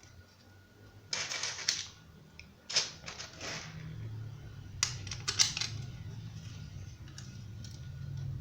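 Small metal screws and fan-blade fittings clicking and rattling in three short bursts as the ceiling fan blades are screwed together; a low steady hum comes in about halfway through.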